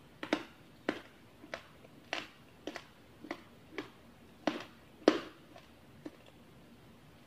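Close-miked chewing of chewy bakso aci (tapioca-starch balls) in soup: about a dozen short wet mouth clicks and smacks at a little under two a second. They stop about six seconds in.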